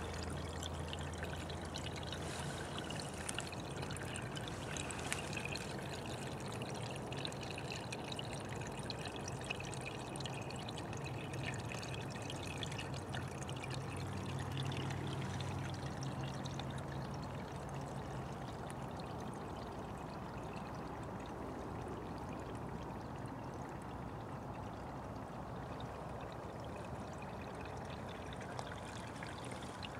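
Small spring-fed forest brook trickling steadily.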